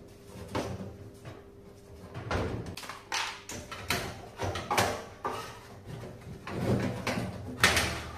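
Thin sheet-metal back panel and parts inside an Electrolux tumble dryer being handled: irregular knocks, scrapes and rattles of metal, with the loudest knock near the end.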